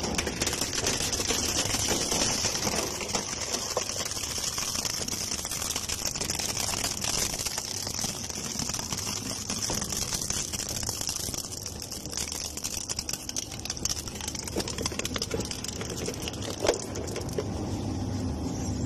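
Heavy shredding machine running, with a steady hiss and a continual patter of small metallic clicks and rattles.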